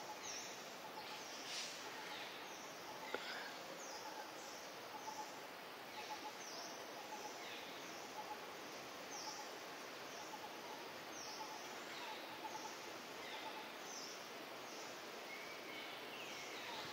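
Outdoor ambience: a steady hiss with birds chirping, many short high calls that fall in pitch, repeating about once a second, and fainter lower chirps beneath.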